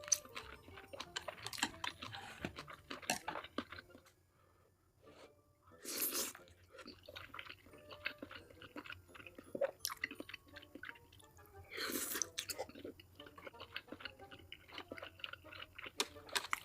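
Close-miked chewing and wet mouth sounds of a person eating, with many small irregular clicks and crunches. There is a short lull partway through and two louder noisy bursts, about six and twelve seconds in.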